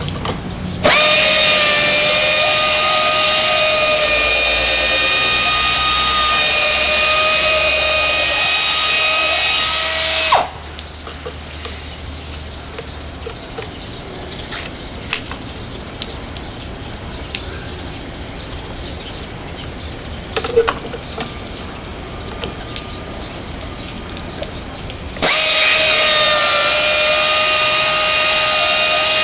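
Pneumatic wet polisher mounted in a GPW-A01 stone-beveling machine running with a steady high whine and air hiss, cutting off suddenly about ten seconds in. A quieter stretch with light scattered clicks follows, and the tool starts up again near the end.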